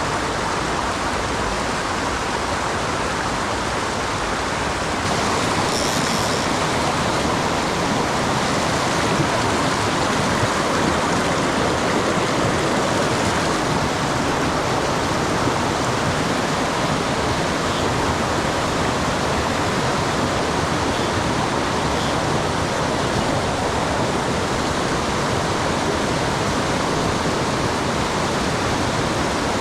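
Mountain stream in spate after a typhoon, its high water rushing in a steady, loud wash; the wash grows a little louder about five seconds in.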